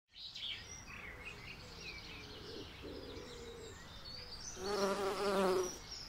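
Bees buzzing, with one passing close and loud for about a second near the end, its hum wavering in pitch; birds chirp in the background.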